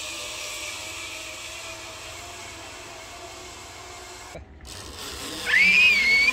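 Zipline trolley pulleys running along the steel cable: a steady hiss that slowly fades as the rider slows. It breaks off briefly about four seconds in, then near the end comes a person's loud, high-pitched, wavering scream.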